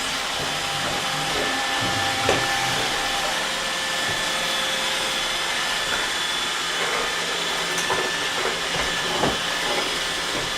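iRobot Roomba 880 robot vacuum running, a steady whirring hiss of its motors and brushes, with a few light knocks as it bumps and moves over debris.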